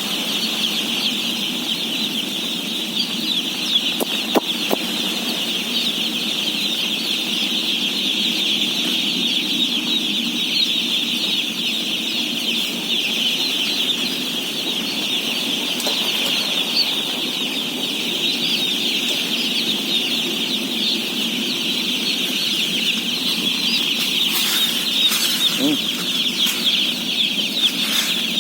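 A dense, steady chorus of peeping from a large flock of day-old chicks, thousands of high chirps overlapping into one continuous sound, with a low steady rumble underneath.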